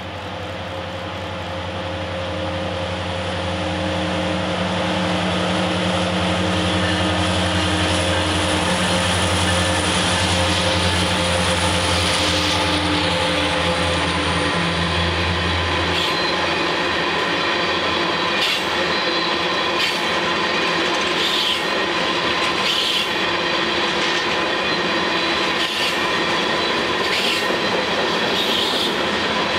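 Two EMD SD70MAC diesel locomotives with 710 engines approach and pass, their deep engine drone growing louder over the first few seconds and cutting off about sixteen seconds in. The freight cars then roll by with a steady rumble, regular clicks of the wheels over rail joints and a high wheel squeal.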